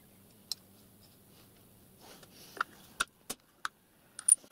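A handful of sharp metallic clicks and clinks from steel letter punches being picked up and set down on the steel vise, most of them bunched in the second half.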